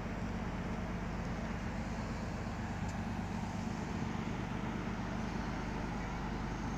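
Large Color Line cruise ferry passing close by: a steady low drone of its engines and machinery, several low hum tones held level over a broad wash of noise.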